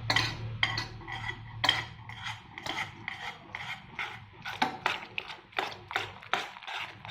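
A spoon stirring milk and custard in a pan on the stove, scraping and clinking against the pan in a steady rhythm of about two strokes a second.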